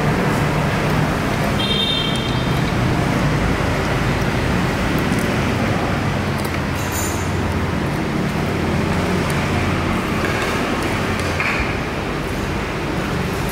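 Road traffic with a motor vehicle's engine running as a steady low drone that eases off about eleven seconds in. There is a brief high-pitched tone about two seconds in.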